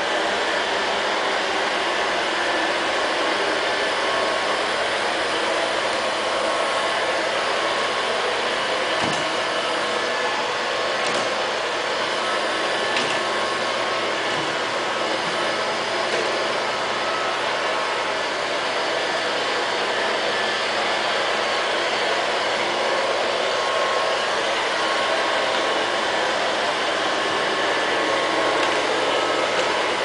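LL-302 robot vacuum cleaner running: its suction fan and brushes make a steady whir, with a few faint ticks in the middle.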